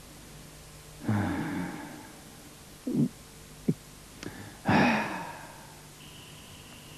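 Scattered knocks and thumps. Two louder thumps, each with a short ringing tail, come about a second in and just under five seconds in, with smaller knocks between them. A faint steady high tone starts near the end.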